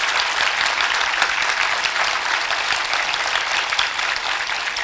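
Audience applauding steadily: many hands clapping together in an even, unbroken stream.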